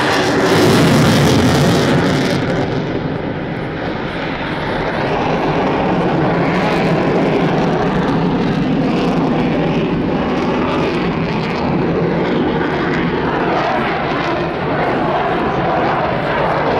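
Boeing F-15I Ra'am fighter's twin jet engines in flight, a loud roar that is strongest with a hissing top about a second in, then softens to a steady, duller rumble.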